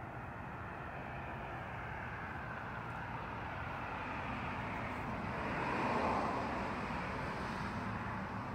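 A passing vehicle: a steady noise that slowly swells, peaks about six seconds in, and then eases off.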